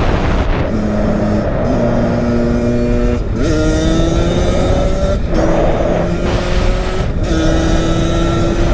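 Kawasaki KX85's single-cylinder two-stroke engine pulling hard under acceleration, its pitch climbing within each stretch. It breaks off briefly about four or five times as the rider shifts up through the gears.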